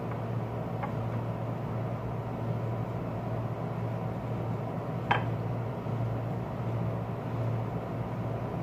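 Steady hum of a running window air conditioner, with a single light click about five seconds in.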